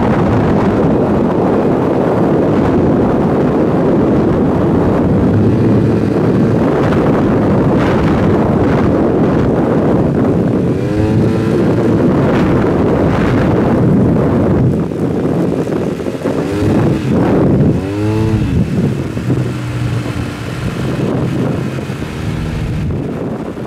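Scooter engine running on the move, its pitch rising and falling as it accelerates and eases off, most clearly about eleven and eighteen seconds in. Heavy wind noise on the microphone covers it throughout.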